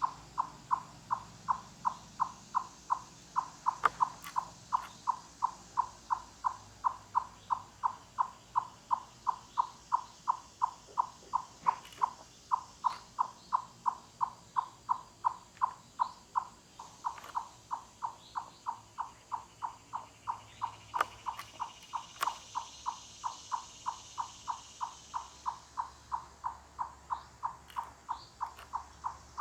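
Eastern chipmunk giving its loud 'cluck-cluck' call, a knock-on-wood-like note repeated steadily about three times a second.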